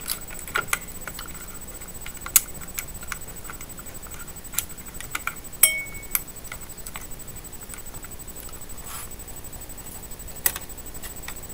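Scattered small plastic and metal clicks and taps from a stock Intel CPU cooler being unclipped and lifted off a motherboard, a few sharper snaps spaced several seconds apart.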